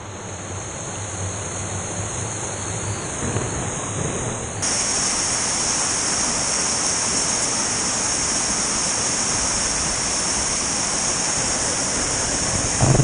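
Rushing white water of a swollen mountain river pouring over rock cascades into pools, a steady roar of noise. It gets louder about four and a half seconds in.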